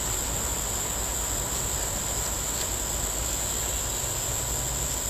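Crickets trilling in a steady, unbroken high-pitched chorus, over a low steady rumble.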